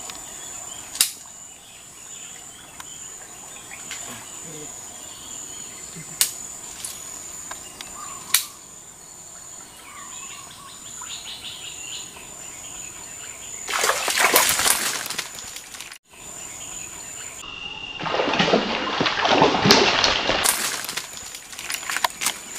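Snakehead splashing and thrashing in swamp water on the end of a fishing line, in two noisy bursts, one about fourteen seconds in and a longer one from about eighteen to twenty seconds. A steady high insect drone runs underneath, with a few sharp clicks in the first half.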